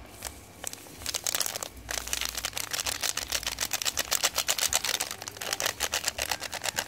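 Plastic packet of seasoning powder being shaken and tapped, the granules rattling in rapid ticks, with a short pause about two seconds in.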